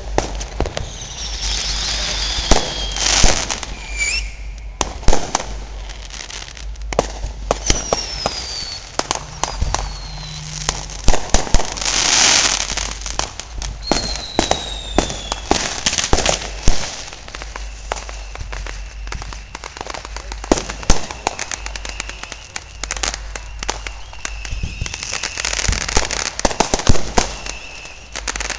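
Fireworks and firecrackers going off all around: a dense run of sharp bangs and pops from aerial shells and firecrackers, with several short whistles falling in pitch in the first half and bursts of crackling hiss. A steady whistle runs through much of the second half.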